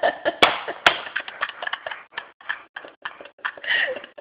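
A rapid, irregular run of small clicks and ticks that thins out over a few seconds, with two sharper clicks in the first second.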